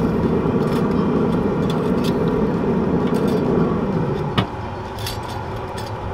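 Metal tongs clicking against a pellet grill's grate while the running Traeger Tailgater gives a steady hum. A bit over four seconds in there is a single sharp clack as the grill lid is shut, and the steady hum drops.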